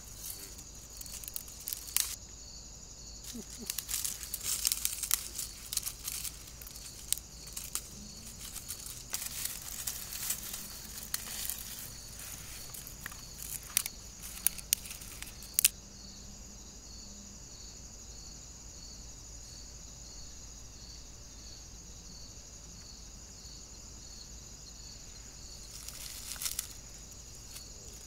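Dry twigs snapping and dead leaves crackling as branches are cut and broken up for kindling, over steady chirping crickets. After about sixteen seconds the snapping stops and only the crickets go on, with a brief rustle near the end.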